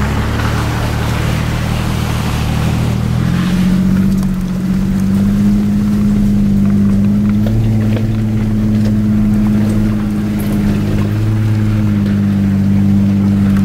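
4x4's engine pulling under load up a steep dirt hill climb, heard from inside the vehicle. Its note climbs about three and a half seconds in, then holds steady.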